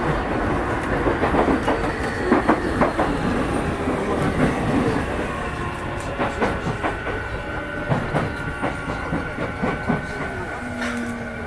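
Running sound of a Y500 series electric train heard from inside the car as it slows for its next stop. The motor whine falls in pitch under braking over a steady rumble, with wheels clicking over rail joints, and steady squeal-like tones near the end.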